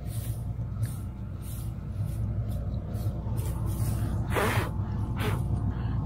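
Combine harvester's engine running steadily with a low hum, its separator switched off. Short bursts of rustling come over it, the loudest a little after four seconds in.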